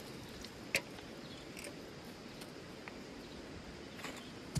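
Steady outdoor background hiss with a few sharp clicks or taps, the loudest about a second in.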